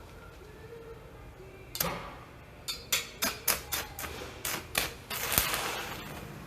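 Kishiden BW-150 DC stick welder test-striking an arc: a series of sharp crackling pops as the electrode is scratched and tapped on the work, then about a second of sputtering arc hiss.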